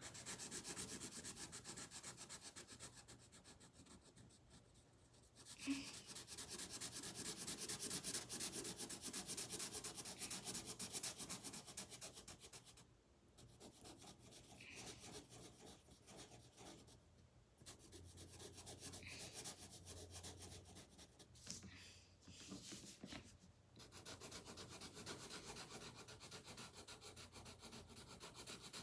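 Felt-tip marker colouring on paper: rapid back-and-forth scratchy strokes in stretches of several seconds, broken by short pauses.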